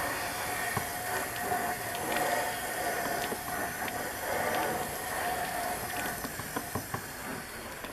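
Water wand on a garden hose spraying into an Aliner trailer's fresh-water tank through its fill inlet: a steady hiss of rushing water, rinsing pink RV antifreeze out of the tank.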